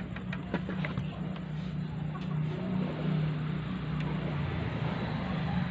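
A few light metal clicks in the first second as an Allen key works the bolts on an AC vacuum pump's casing, over a steady low drone.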